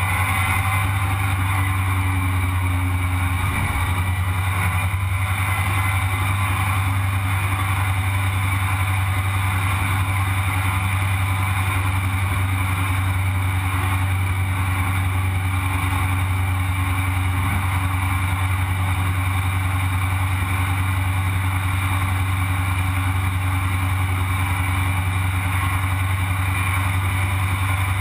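Sandrail's engine running steadily as it drives along the road at an even speed.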